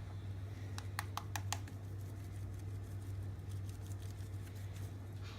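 Old Bay seasoning shaker being shaken over chicken: a quick run of sharp clicks about a second in, then fainter ticks, over a steady low hum.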